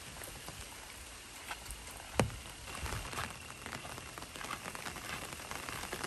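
Light rain pattering, with scattered drops ticking throughout and one louder knock about two seconds in.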